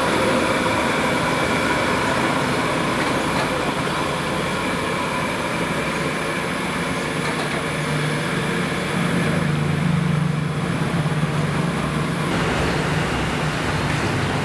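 Steady street traffic noise, with a vehicle engine's low drone swelling from about eight seconds in and fading about four seconds later.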